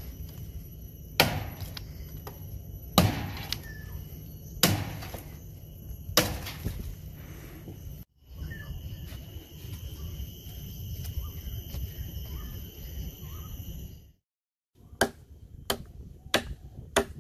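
WorkTuffGear C.U.M.A. King Destructo cleaver, a heavy SK85-steel chopper, chopping into a green tree branch. There are four hard chops about a second and a half apart, then a few seconds with no chops, then a quicker run of chops near the end, about two a second.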